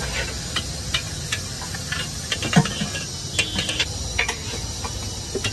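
Bhatura deep-frying in a large wok of hot oil: a steady sizzle with scattered short crackles and clicks, the loudest about two and a half seconds in.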